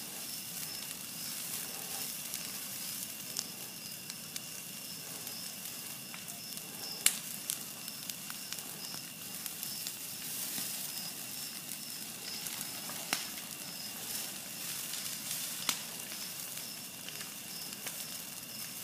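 Wildfire burning through dry pine-woods underbrush: a steady crackling hiss with sharp pops now and then, the loudest about seven seconds in.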